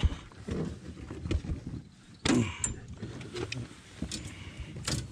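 Handling noises as a caught rainbow trout is unhooked: scattered light knocks, clicks and rustles. A brief faint voice sound comes about two seconds in.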